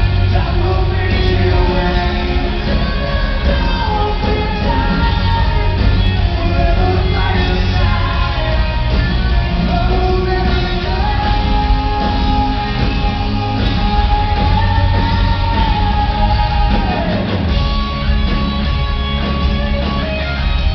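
Live rock band playing, with singing over drums, bass and guitars. A long note is held steady through the middle and drops off about three-quarters of the way through.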